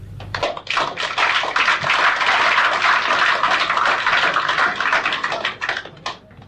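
A last held sung note ends about half a second in. An audience then applauds, a dense spell of clapping that fades away near the end.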